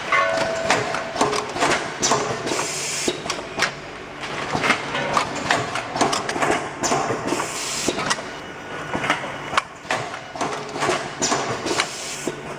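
Automatic bagging and packaging machine running, with a string of sharp mechanical clicks and clacks and two short hisses.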